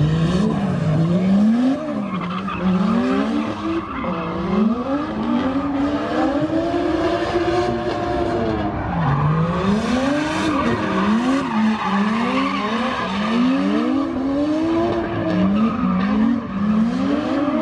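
Drift car's engine revving hard, its pitch rising and falling again and again as the driver works the throttle through the slide, with the tires squealing and skidding on the asphalt.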